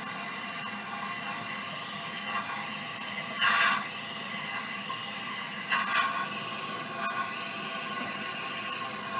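A steady hiss with a faint whirring hum, broken by two short, louder noises, one about three and a half seconds in and one about six seconds in.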